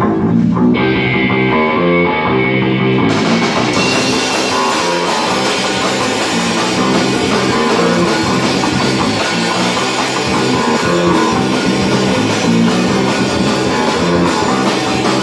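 Live punk band playing instrumentally: electric guitars, bass and drum kit. It opens with a guitar riff, and the full kit with cymbals comes in about three seconds in.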